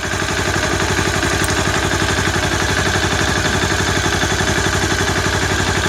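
Honda CBR250R single-cylinder engine idling steadily with an even, fast pulse and some clatter. The clatter is typical of a cam chain slapping its guide because the tensioner has gone loose.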